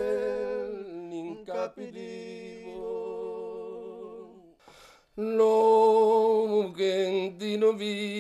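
A man singing unaccompanied in long, held notes with a slow vibrato. He breaks off shortly before the middle and comes back louder about five seconds in.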